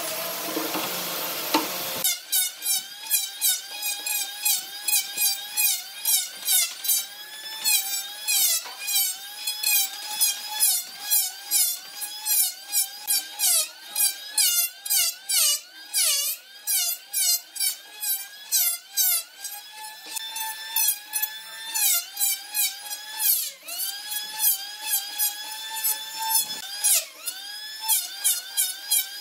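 Electric hand planer shaving the face of a wooden tabletop, its motor whine dipping in pitch and recovering again and again as the blades bite, with a rasp of cutting on each stroke. A steady hiss fills the first two seconds before the planing starts.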